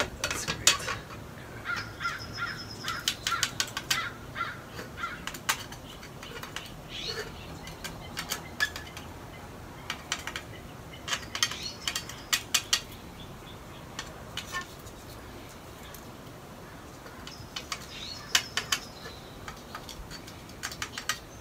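Clusters of light metallic clicks and taps as a straightedge and feeler gauge are set against a Subaru EJ25's aluminium cylinder head, checking whether the sanded deck is flat.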